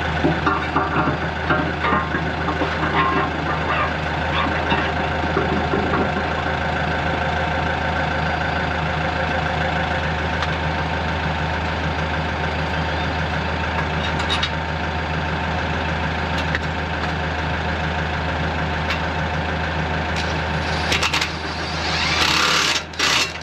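Excavator's diesel engine running steadily, with scattered knocks in the first few seconds and a loud rushing noise near the end.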